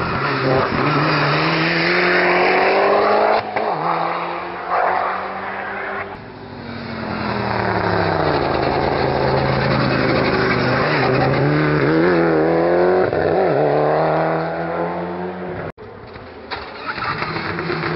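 Mitsubishi Lancer Evolution rally cars with turbocharged four-cylinder engines, accelerating hard one after another. The engine pitch climbs and drops with quick gear changes. The sound jumps abruptly from one car to the next about six seconds in and again near the end.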